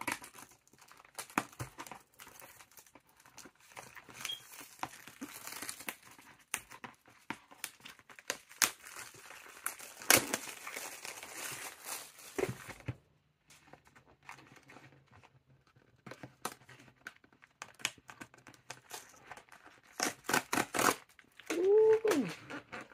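Plastic shrink-wrap crinkling and tearing as it is ripped off a cardboard booster box, followed by sparser taps and clicks as the bare box is handled and its lid is opened. A short wavering tone sounds near the end.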